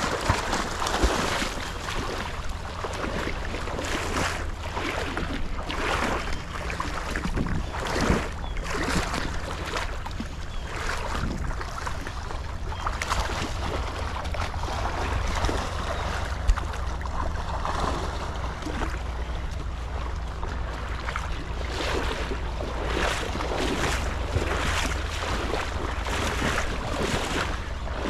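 Water splashing and sloshing as a dog swims and a person wades through shallow floodwater, in repeated strokes about once a second, with wind rumbling on the microphone.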